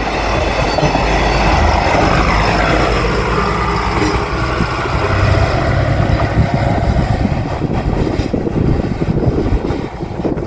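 Japanese 1000 series diesel railcar passing close by, with heavy rumble and a tone that drops in pitch about two to four seconds in as it goes past, then wheel clatter on the rails.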